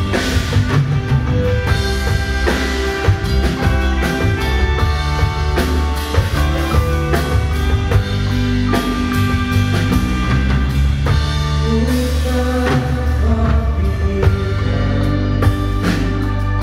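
Live band playing a song through the stage PA: drum kit, electric bass and guitar, with a steady beat.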